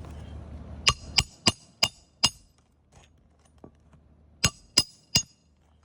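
Hammer striking metal with sharp, ringing clinks: five quick strikes, a pause, then three more.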